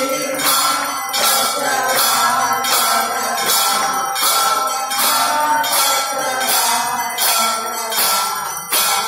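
Temple aarti bells and metal percussion clanging in a steady rhythm, about two strikes a second, with a ringing tone held between the strikes.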